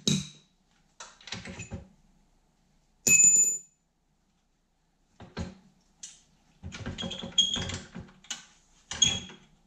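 Metal clinks, knocks and rattles of hand tools and a bolt against a dirt bike's frame as a loosened, corroded motor mount bolt is worked free. One short, ringing metallic clink about three seconds in is the loudest sound.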